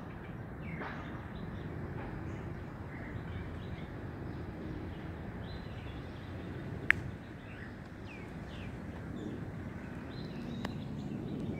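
Outdoor garden ambience picked up by a smartphone microphone: a steady low background rumble with birds chirping now and then. A single sharp click stands out about seven seconds in, with a fainter one near the end.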